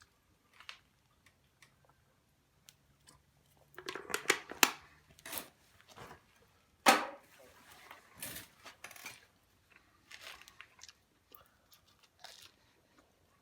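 Crunching and chewing as a crisp gyoza-wrapper mini pizza is bitten and eaten, in irregular bursts, loudest about four to five seconds in and again about seven seconds in.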